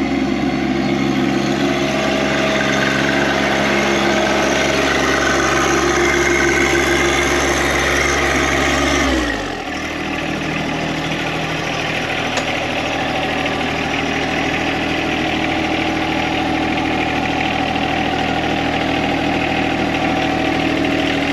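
John Deere compact tractor's three-cylinder diesel engine running steadily, then throttled down about halfway through and settling at a lower, steady idle.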